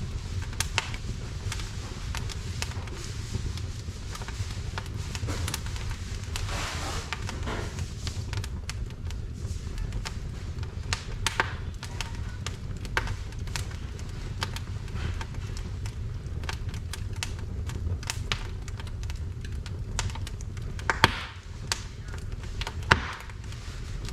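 Split firewood burning in a wood-burning fireplace, crackling with irregular sharp pops over a low steady rumble of the fire. Two louder pops or knocks come near the end.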